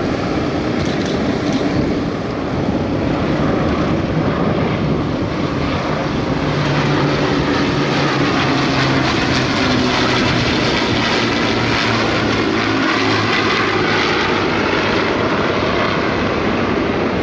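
Avro Lancaster bomber and two single-engine fighters flying past in formation, the steady drone of their Rolls-Royce Merlin piston engines. The drone gets a little louder about three seconds in, and its pitch falls as the formation passes.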